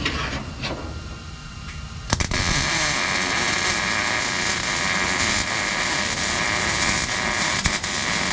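Welding arc on the sheet-metal shifter hump of a car floor, tacking it in. After a few light clicks, the arc strikes about two seconds in and crackles steadily.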